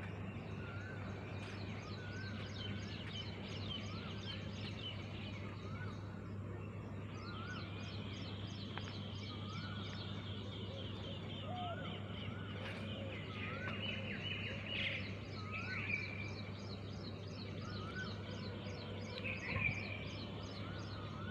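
Birds calling outdoors: one repeats a short rising-and-falling chirp about once a second, with a few louder calls near the end. A fast, even high ticking and a steady low hum run underneath.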